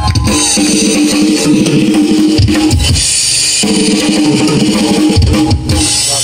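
Live rock drumming on a full drum kit, with heavy bass-drum hits and a steady wash of cymbals, over sustained amplified chords.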